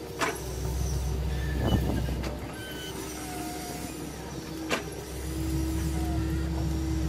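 Electric motors of a radio-controlled Caterpillar excavator running as the boom lowers and the arm swings in to dig, a steady motor hum that eases off in the middle and picks up again with a steady whine, with three sharp clicks.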